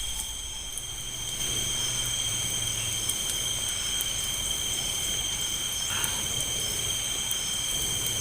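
Night insect chorus: several steady high trills at different pitches, running without a break.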